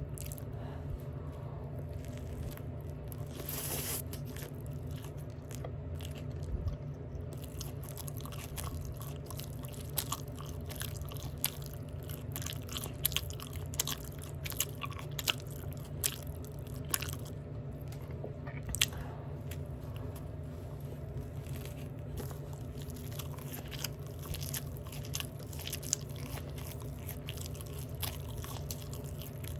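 Close-up open-mouth chewing of a McDonald's Big Mac: wet smacking and crunching mouth sounds with many sharp clicks, over a steady low hum.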